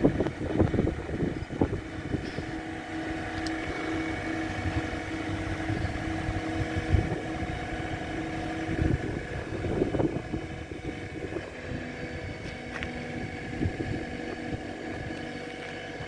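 Posch Spaltfix K-650 firewood processor running with a steady mechanical drone while its discharge conveyor is raised hydraulically; held tones in the drone switch on and off as the hydraulics work. Wind rumbles on the microphone in gusts, mostly in the first two seconds and again around ten seconds in.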